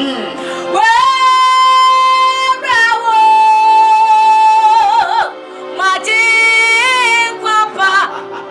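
A woman sings a Ghanaian gospel worship song solo, holding two long, high notes and then moving into wavering melodic runs.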